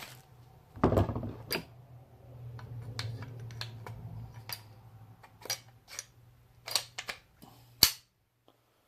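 Paintball marker parts being handled as a new bolt is slid into the upper receiver: a knock about a second in, then a string of sharp metal clicks, the loudest near the end.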